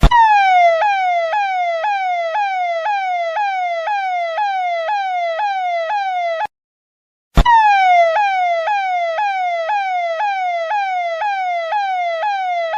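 Police siren in a fast yelp, each cycle a quick rise and a slower falling sweep, about two a second. It cuts off abruptly about six and a half seconds in and starts again with a click about a second later.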